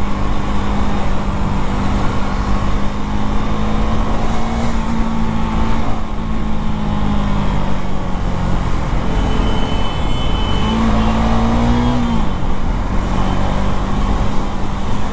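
KTM 390 Duke (third generation) single-cylinder engine running steadily at road speed, heard through heavy wind rush on the handlebar-mounted camera. About eleven seconds in, the engine note rises and then drops back.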